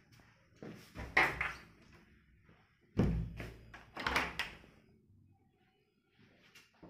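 A hostel room door being shut, with a heavy thud about three seconds in and knocks and rattles of the door before and after it.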